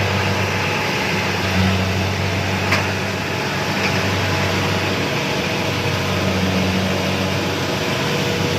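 Rice combine harvester running steadily, its engine and threshing machinery giving a constant low hum under an even whirring noise, with one sharp click a little under three seconds in.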